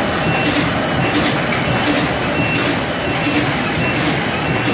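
Automatic carton box stitching machine running: steady loud mechanical clatter from its belt feed and stitching heads, with a short regular beat repeating a little faster than once a second.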